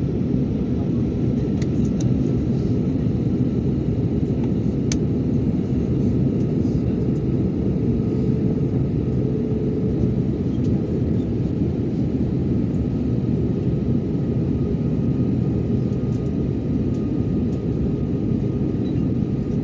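Steady loud rumble of an airliner in flight, heard inside the passenger cabin: engine and airflow noise with a few faint ticks.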